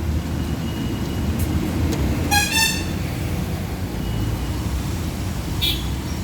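Steady low rumble of engines and traffic, with a vehicle horn giving a short double toot about two seconds in.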